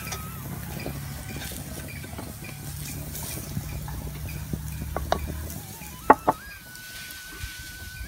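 Wooden spoon stirring chopped cassava leaves in a clay pot, with scattered light scrapes and two sharp knocks of the spoon on the pot about six seconds in. Near the end a steady, wavering tone of background music begins.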